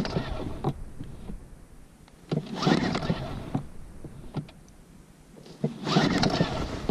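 Recoil starter cord of a Sea-Pro T3S two-stroke outboard motor being yanked three times, each pull a rasping whirr of about a second, without the engine catching. These are the first easy pulls after winter storage, made only to draw fuel through and prime the system.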